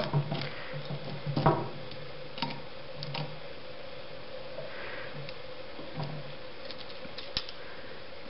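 Light clicks and taps of small metal clips and wires being handled on a helping-hands soldering stand, with a few sharper clicks in the first two seconds and sparser ones later, over a faint steady hum.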